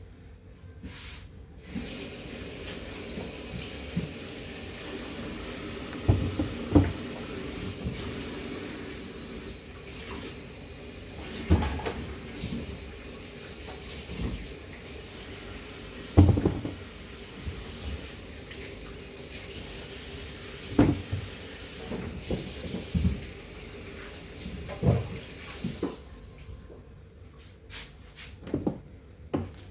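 Kitchen tap running steadily into a sink while produce is washed, with a series of sharp knocks and clunks from items handled in the sink. The water shuts off a few seconds before the end.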